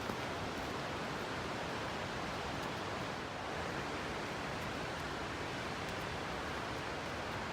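Steady rush of falling water from a waterfall, an even, unbroken roar with no changes.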